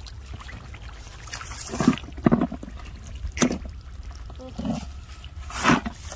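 About five short wet splashes and squelches in shallow muddy water, spaced a second or so apart, as the mud and water are stirred up.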